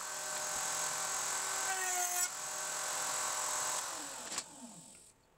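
Router under a SHARK RS1000 Pro CNC router table running steadily with a dovetail bit, its tone shifting briefly about two seconds in. Near four seconds it is switched off and winds down, falling in pitch.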